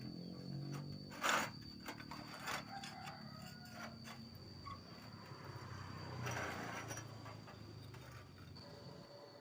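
A few sharp knocks and clatters, the loudest about a second in and another about a second later, over a faint steady high whine.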